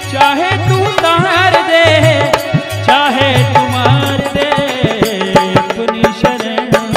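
Instrumental passage of a Rajasthani devotional bhajan: a tabla keeps a steady rhythm under a melody line that slides and wavers in pitch.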